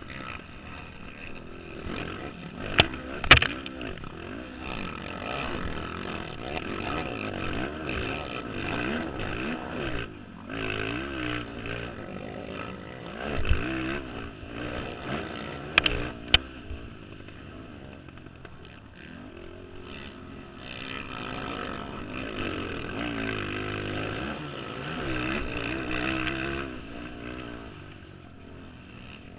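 Racing quad (ATV) engines revving and passing, their pitch rising and falling as riders go on and off the throttle around the track. A few sharp knocks stand out about three seconds in and again around sixteen seconds.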